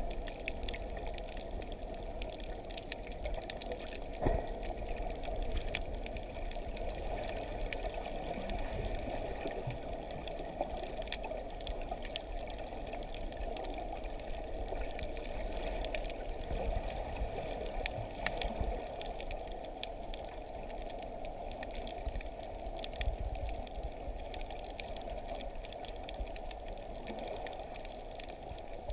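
Underwater ambience picked up by a submerged camera on a coral reef: a steady rush of water noise with scattered sharp clicks and crackles.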